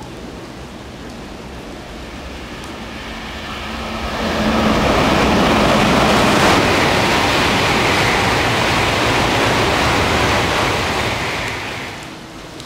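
A Shinkansen bullet train passing at speed on wet track: a rushing roar of air and wheels that builds over a few seconds, holds loud, then dies away near the end.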